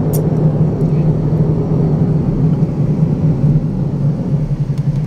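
Steady road and engine noise inside a moving car's cabin on an expressway: a continuous low drone with a steady hum.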